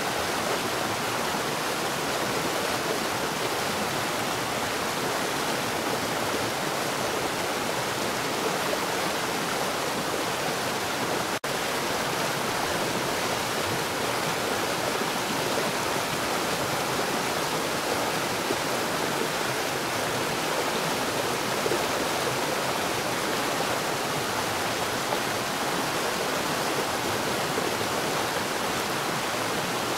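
Water falling underground at a rapid rate, a steady unbroken splashing flow. A momentary dropout in the sound about eleven seconds in.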